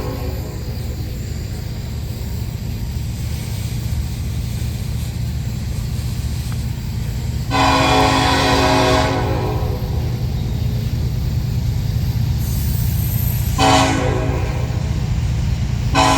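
Diesel locomotive horn sounding over the steady rumble of a passing train: one long blast about halfway through, a short blast near the end, and another long blast starting at the very end. This long-long-short-long pattern is the standard grade-crossing signal.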